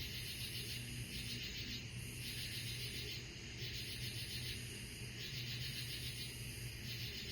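Night insects chirping: a high, rapidly pulsing trill that comes in repeated bursts of about half a second to a second with short gaps, over a faint steady low hum.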